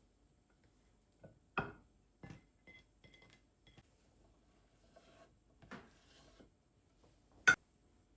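Objects being handled and set down indoors: a string of short knocks and taps with a few faint ringing clinks in the middle. The loudest knock comes near the end.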